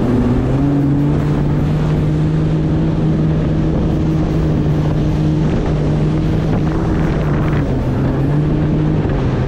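Jet ski engine running at speed with a steady drone, its pitch dropping slightly for a moment near the end, over the rush of spray and wind on the microphone.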